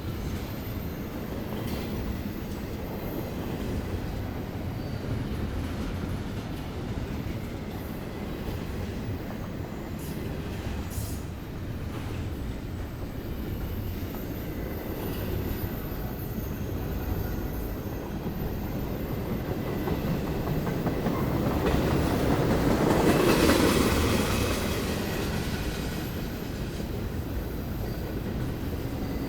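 Norfolk Southern freight train rolling through a street crossing: a steady rumble of rail cars on the track with a faint high wheel squeal. It swells louder about three quarters of the way through, then eases back.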